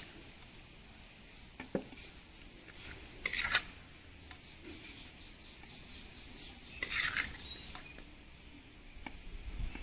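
Metal spoon scraping and clinking in a stainless steel pot as oily jackfruit pickle is scooped out. There is a short click near 2 s in and two louder scrapes, about 3.5 s and 7 s in.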